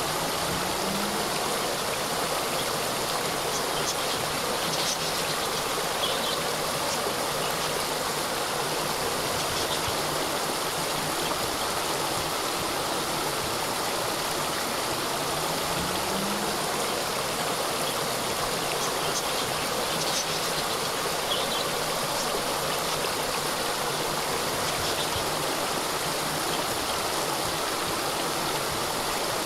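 Small cascade of water falling and running, a steady, unbroken rush of water noise.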